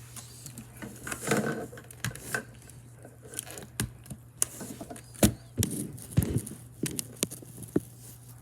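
Tape-modded mechanical keyboard with budget stabilizers being typed on: irregular sharp clacks of single keypresses and quick runs of keys, over a steady low hum.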